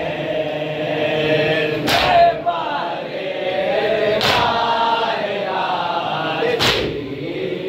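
A group of men chanting a nauha together in a lament melody. A sharp unison slap of matam chest-beating lands about every two and a half seconds, three times.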